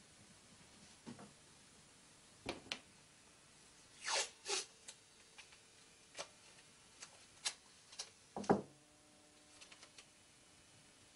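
Irregular small clicks and knocks, a dozen or so spread unevenly, with a pair of louder rustling bursts about four seconds in and the loudest knock about eight and a half seconds in.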